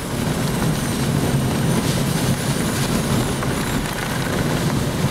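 Hurricane eyewall wind buffeting the microphone: a steady low roar, with a thin high whistle wavering above it.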